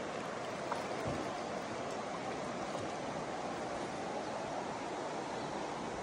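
Steady rush of a mountain stream flowing over rocks.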